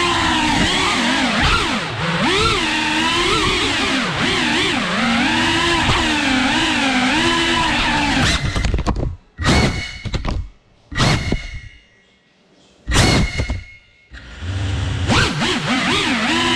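Small FPV quadcopter's brushless motors and propellers whining, the pitch rising and falling with the throttle. About halfway through, the throttle is chopped and punched in four or five short bursts with quieter gaps between, before the steady whine returns near the end.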